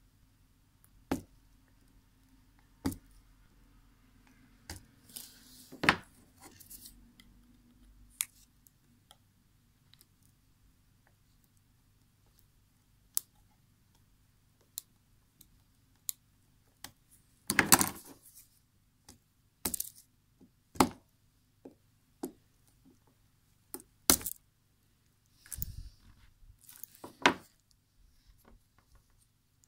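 Small hand tools clicking, tapping and scraping against the plastic and metal barrel of a Microsoft LifeCam Cinema webcam as it is taken apart. The sharp clicks come singly at irregular spacing, with a longer scraping rattle a little past halfway.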